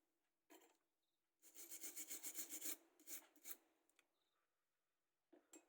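A small hand tool scraping and rubbing the pads of a phone circuit board, cleaning off solder paste where an IC was removed. About one and a half seconds in comes a quick run of rapid strokes, several a second, then a few single scrapes, with short scrapes near the start and near the end.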